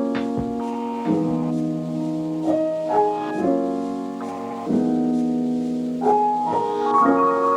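Background music: a piano playing slow, sustained chords that change about every second.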